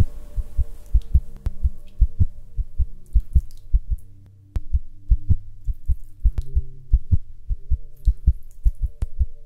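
Soundtrack of fast, evenly paced low thumps in a heartbeat-like pulse over held low drone tones; it drops away briefly about four seconds in.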